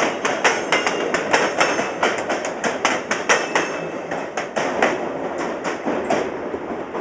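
Railway wheels clacking over rail joints: a fast, uneven run of sharp metallic clacks over a steady rolling rumble.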